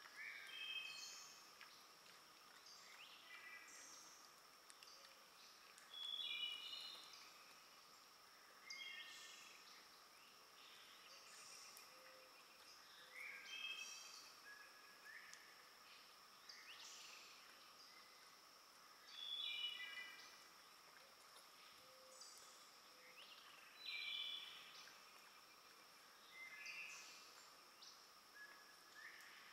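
Woodland birds singing short songs repeated every few seconds, over a steady high drone of insects.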